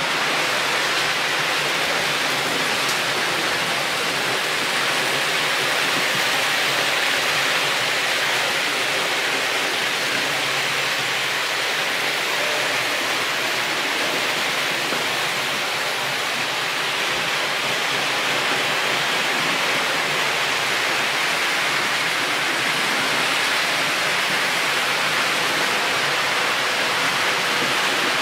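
Steady, even hiss-like rushing noise with no distinct events.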